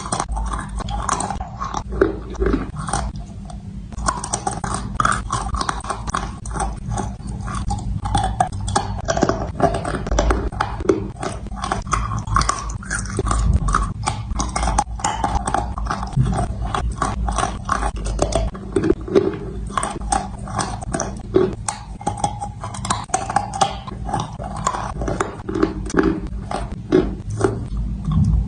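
A person crunching and chewing dry edible clay and chalk: a dense, steady run of crisp crackles.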